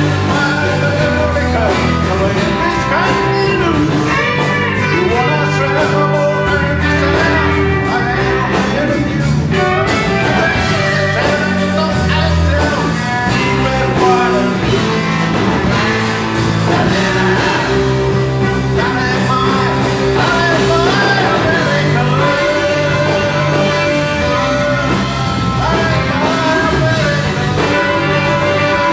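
Live country band playing amplified: fiddle, guitars, bass and drums with a steady beat.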